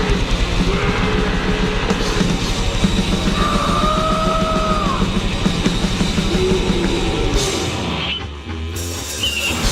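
Noisecore/grindnoise music: a dense, loud wall of distorted noise with pounding drums and gliding squealing tones. It thins out and the low end drops away for a moment near the end, then comes back in full.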